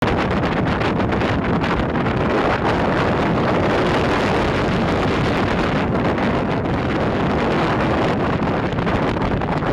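Steady wind buffeting the microphone on a small open motorboat running at speed, mixed with the boat's motor and rushing water.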